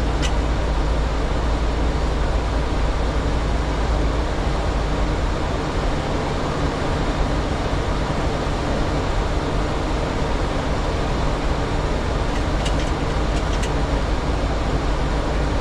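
Steady cockpit noise of a Boeing 737 in descent: an even rush of airflow and air conditioning over a low drone, with a few faint clicks.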